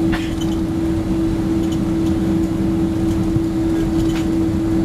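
Cabin noise of a Boeing 767-300ER taxiing after landing: steady jet engine and airflow rumble with one constant low drone running through it. Two faint clicks, one at the start and one about four seconds in.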